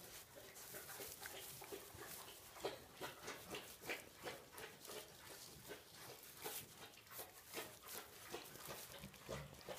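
Piglets rooting in straw bedding: faint, irregular rustling with a few soft grunts.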